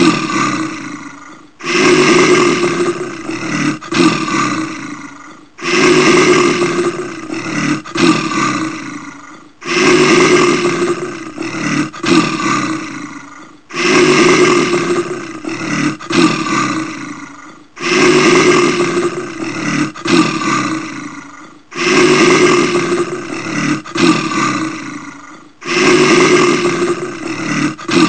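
Brown bear roaring, the same deep roar repeated about every four seconds, seven times; each roar starts loud and fades away, with a brief break about halfway through.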